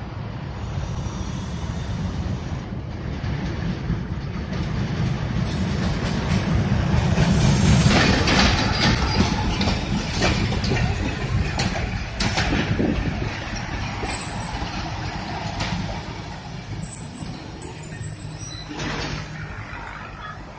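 Pakistan Railways passenger train passing close by: the diesel locomotive's low rumble gives way to the coaches rolling past. Wheels clatter over the rail joints, loudest about eight seconds in, then the sound eases slightly.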